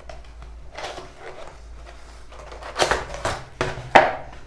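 A cardboard keyboard box being opened and handled: scattered rustling and scraping, with a sharp knock about four seconds in that is the loudest sound.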